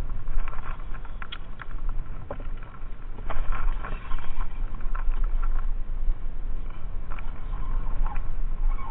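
Wind rumbling on the microphone over small waves slapping and lapping against a small boat's hull, with scattered clicks and knocks.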